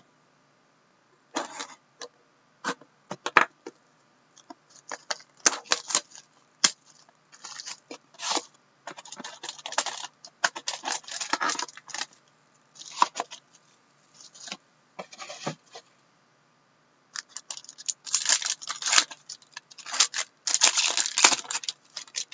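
Clear plastic shrink wrap crinkling and tearing by hand as a sealed trading-card box is unwrapped. It comes in irregular crackly bursts, with a short lull about two-thirds of the way through, then denser crinkling near the end.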